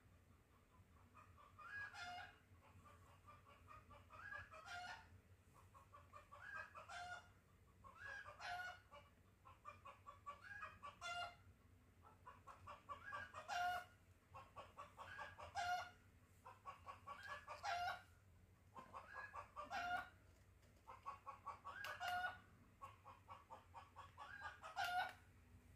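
A chicken calling over and over, about one call every two seconds, each a quick run of clucks that ends in a louder note.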